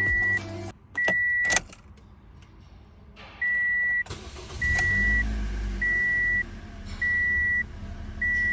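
Electronic warning beeps at one steady pitch, each about half a second long, repeating roughly every 1.2 seconds, with a pause of about two seconds after the second beep.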